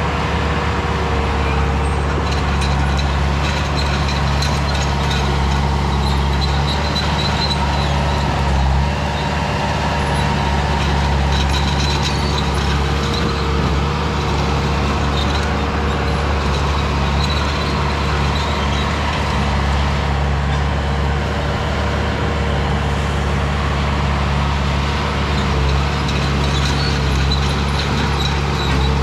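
Engine of a 2001 skid steer running steadily at a constant speed: a loud, unbroken low drone.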